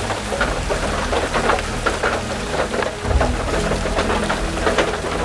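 Heavy rain falling on the shooting house, many individual drops striking close by over a steady hiss, with a low rumble underneath.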